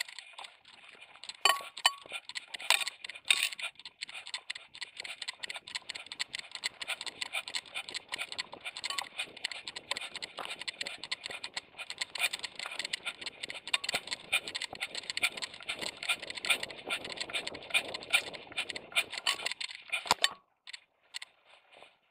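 Handling noise from an action camera strapped to a moving dog's vest: dense, rapid rustling and clicking as the dog's fur and the harness rub and knock against the camera, with a few louder knocks near the start. It stops abruptly shortly before the end.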